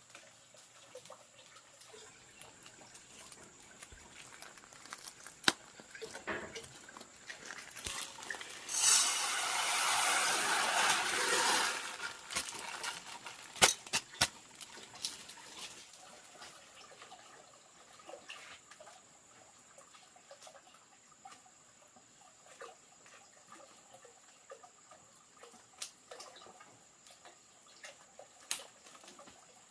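Water running or pouring for about three seconds, around nine seconds in, among scattered light clicks and knocks of handling.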